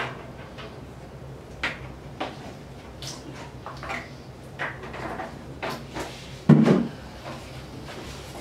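Scattered light knocks and clicks, with one louder thump about six and a half seconds in, over a steady low hum.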